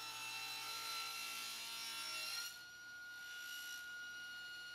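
Table saw ripping a thin end-grain maple strip into a 1/4-inch strip, its motor running steadily. The hiss of the cut drops away about two and a half seconds in as the strip clears the blade, and the saw runs on.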